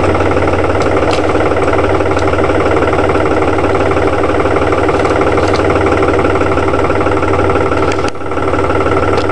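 Tractor diesel engine running steadily at idle, with a brief dip in level about eight seconds in.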